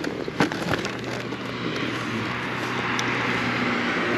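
Motorcycle engine running steadily under way, a low hum under rushing wind and road noise that grows about halfway through, with a few sharp clicks in the first second.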